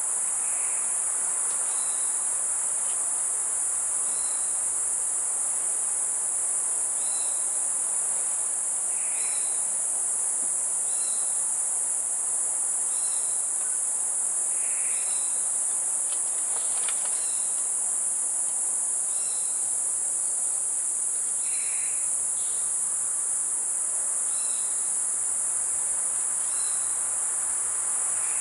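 Steady, high-pitched drone of an insect chorus, with short chirps repeating every second or two and a few softer calls scattered through it.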